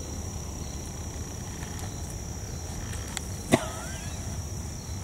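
Outdoor pond ambience: a steady low rumble with a thin, steady high-pitched buzz above it, and one sharp click about three and a half seconds in.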